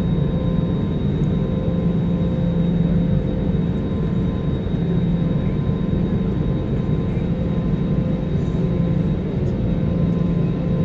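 Cabin noise of an Airbus A320neo taxiing, heard from a window seat beside the engine: a steady hum with a low drone that swells and fades gently, and a thin steady whine above it.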